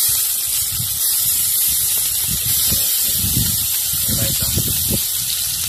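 Steady hiss of liquid sizzling as it is poured into a hot aluminium pot of potatoes and onions over a wood fire, with an uneven low rumble underneath.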